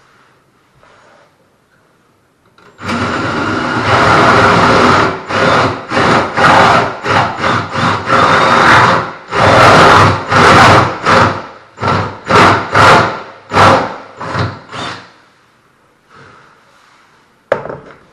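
Power drill with a 1-inch paddle bit boring through the wooden edge of a door for the latch hole. It starts about three seconds in and runs steadily for a few seconds, then goes in many short bursts as the trigger is pulsed, until the bit is through. A single sharp click comes near the end.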